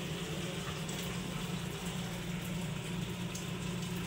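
Meat broth pouring in a steady stream from a steel cooking pot through a ladle onto rice in a large pot, splashing continuously. This is the stock the rice is then cooked in. A steady low hum runs underneath.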